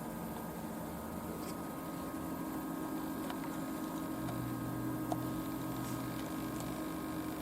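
Refrigerator running: a steady low hum with several steady tones, a deeper tone joining in partway through, and a few faint ticks.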